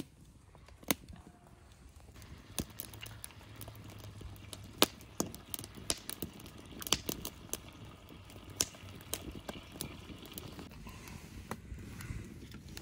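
Scattered sharp clicks and crackles at irregular intervals over a low steady background, with the loudest snap about five seconds in.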